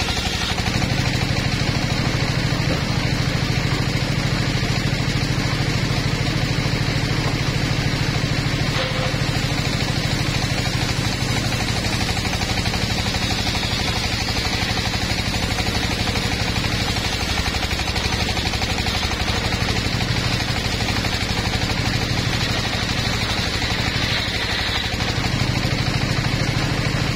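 Engine-driven portable circular sawmill running steadily, its large circular blade ripping through logs and boards as they are fed into it, with a steady engine drone under the cutting noise.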